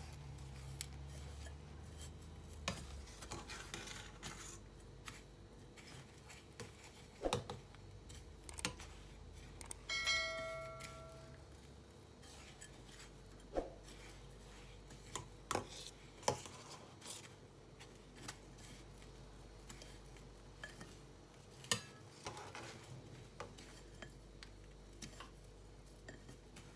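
Hands rolling dumplings through breadcrumbs in a glass bowl: scattered light knocks and clicks against the glass. About ten seconds in there is one brief ringing tone.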